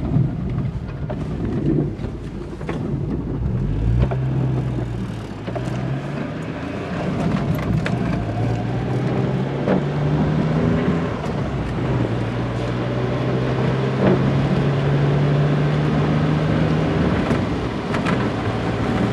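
A 1997 Geo Metro's 1.0-litre three-cylinder engine running under way, heard from inside the cabin over tyre and rain noise. Its note rises and steps down a few times as the car picks up speed. The engine is running much smoother since its fuel injector was replaced.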